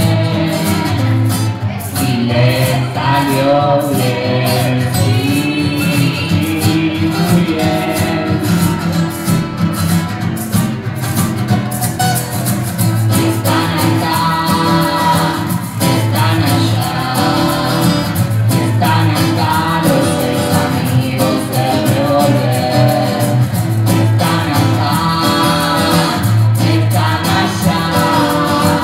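Live small-band music on acoustic guitars, upright bass and drums, with a voice singing the lead.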